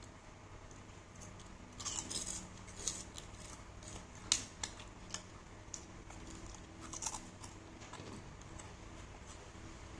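Scattered light clicks, clinks and taps of utensils and dishes being handled, the sharpest about four seconds in.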